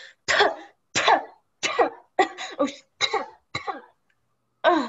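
A young actor coughing and spluttering in a string of about ten short, harsh bursts, acting out choking on a spider that has crawled into their mouth.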